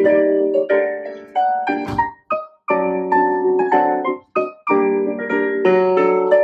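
Solo piano playing chords in short phrases with brief pauses, the accompaniment for a ballet center combination. A single short thump sounds about two seconds in.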